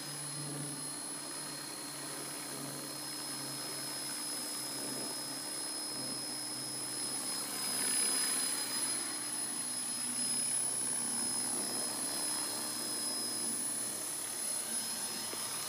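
Electric Thunder Tiger Mini Titan RC helicopter's motor and rotor whining in flight, with steady high-pitched tones. The sound swells as it makes a fast, low pass about halfway through.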